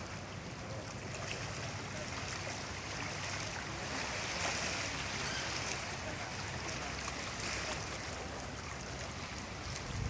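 Steady wash of small waves lapping around a rock in calm sea water, with a low rumble underneath.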